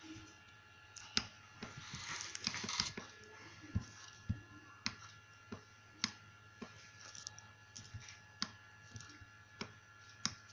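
Irregular clicking of computer controls, roughly one click a second, with a short rustle about two seconds in, over a faint steady electronic tone.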